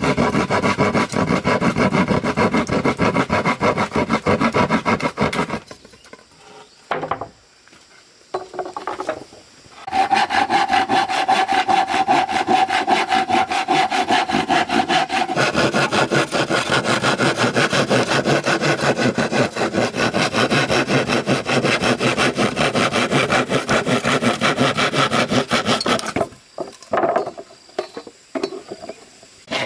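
A saw cutting wood in quick, even strokes. It stops and starts again about ten seconds in, runs on steadily, then breaks off near the end.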